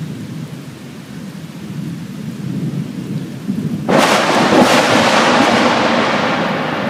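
Thunder: a low rumble, then about four seconds in a sudden loud thunderclap with a few sharp cracks that rolls on and slowly fades.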